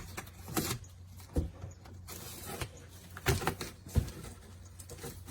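Handling noises: several sharp knocks and short scrapes at irregular moments, the strongest about four seconds in, over a low, steady hum.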